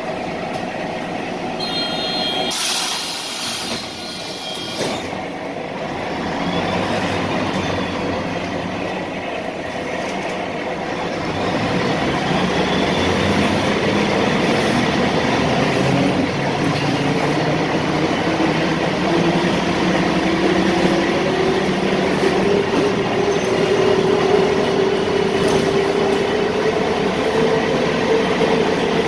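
Interior of an Ikarus 260 city bus: a loud hiss of compressed air about three seconds in, then the diesel drivetrain pulling away and accelerating, its whine rising steadily in pitch through the second half.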